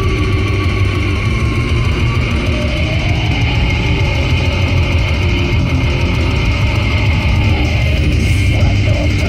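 Loud heavy rock music with electric guitar and drums.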